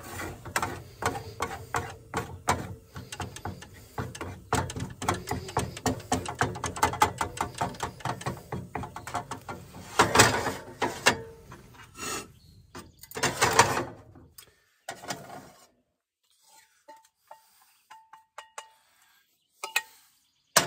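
A wooden spatula stirring and scraping a scramble of eggs in a stainless steel skillet on a propane camp stove: a dense run of quick scraping strokes, with a few louder ones about ten and thirteen seconds in. The sound stops abruptly about two thirds of the way through, after which there are only a few faint taps.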